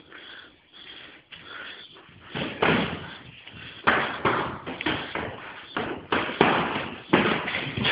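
Muay Thai blows landing: a string of dull, irregular thuds of punches and kicks striking the body, starting about two and a half seconds in after a quieter lull.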